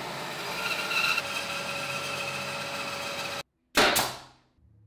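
Benchtop bandsaw running and cutting a thin wooden strip, a steady whir with a faint whine. It breaks off abruptly, and a little later a pneumatic nailer fires once with a sharp crack and a short ringing tail.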